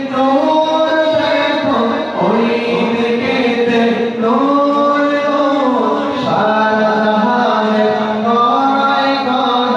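A naat sung by voices without instruments, in long held notes that slide from one pitch to the next, amplified through a loudspeaker.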